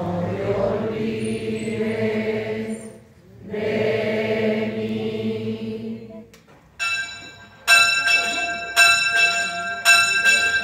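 A group of voices sings a slow religious hymn in two long, held phrases. About seven seconds in, a church bell starts ringing, struck about once a second.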